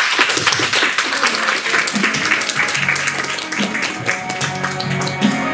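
Audience applauding over background music. The clapping is dense at first and thins out over the second half as the music comes to the fore.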